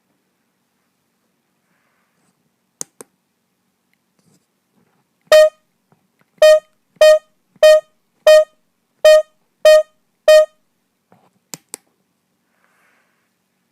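A homemade microcontroller phone's sounder gives eight short electronic beeps, all at one pitch, most a little over half a second apart. A pair of faint clicks comes before them and another pair after.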